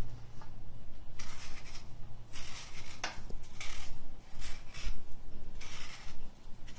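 Small kitchen knife paring the skin off the top of a firm green apple: a series of short, crisp scraping cuts, with one sharp click about three seconds in.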